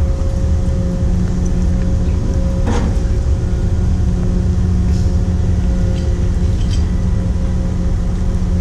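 Steady drone of a research ship's machinery, a dense low rumble with a constant whine on top, and a couple of faint knocks about three and five seconds in.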